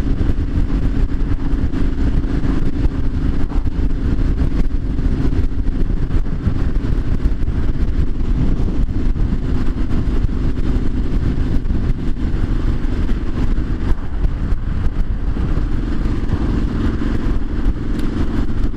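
Triumph Street Scrambler 900's parallel-twin engine running at a steady road speed under heavy wind rush. About fourteen seconds in the engine note falls away briefly, then settles at a slightly lower pitch.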